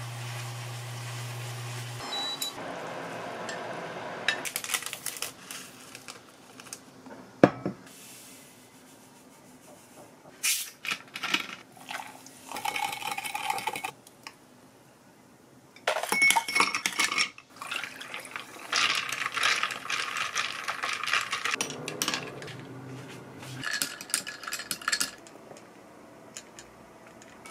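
Kitchen and tableware sounds in short separate bursts. First, chopsticks stir noodles in a pan over a low steady hum. Then a sharp knock comes about seven seconds in, followed by clinks of glass, ice and dishes and a drink being poured.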